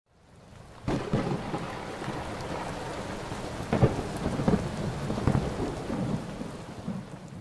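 Thunder with rain: a sudden crack about a second in, then a long rumble broken by several sharp crackling peaks, dying away near the end.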